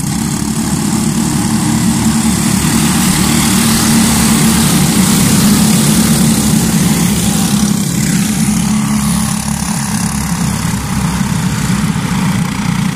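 An engine running steadily, with a strong even hiss over it.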